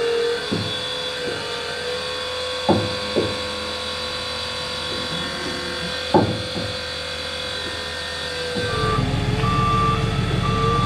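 Electric forklift running with a steady whine and two sharp knocks. About two seconds before the end a louder low hum comes in, along with a repeating warning beep.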